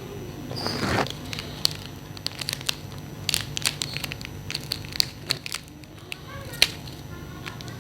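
Irregular crinkling, crackling and sharp clicks of plastic packaging being handled as a pack of Bon Cabe chili-flake seasoning is opened to sprinkle over noodles.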